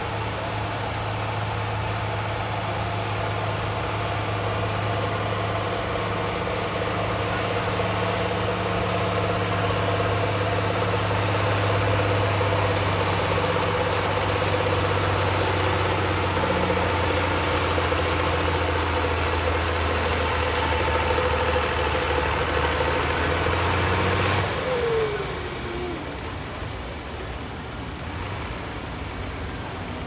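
John Deere farm tractor engine under heavy, steady load as it drags a weight-transfer sled, holding constant revs. About 25 seconds in, the throttle comes off and the revs fall away as the pull ends, leaving the engine running quieter.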